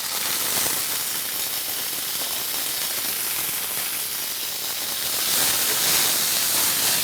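Julienned chicken, marinated in soy sauce, sizzling in a hot pan with a little oil: a steady hiss that starts sharply as the chicken goes in and grows a little louder near the end.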